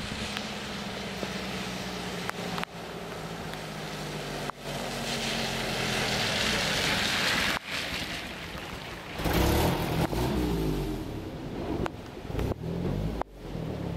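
A steady rush of rain and floodwater, with the low hum of an engine running underneath that rises in pitch for a moment about two-thirds through. The sound dips sharply for an instant several times.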